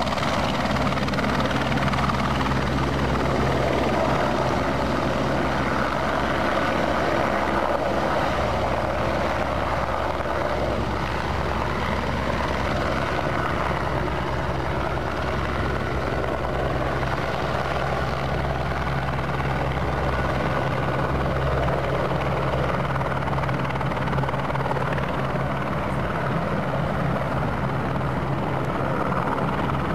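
Aérospatiale AS355F2 twin-turbine helicopter running steadily, its main rotor and turbines giving a continuous low hum under a broad rushing noise as it hovers and manoeuvres near the pad.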